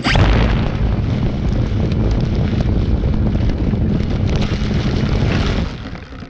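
Electric Yak 54 RC plane's motor and propeller at full throttle, churning through grass with heavy prop wash on the microphone and a rapid ticking of grass strikes. The motor lacks the power to lift off, so the plane mows the grass instead. Starts abruptly and cuts back sharply near the end.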